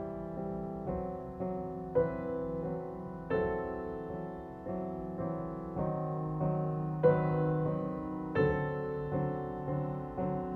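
Soft background piano music: a slow melody of struck notes that ring and fade, a new note every second or so.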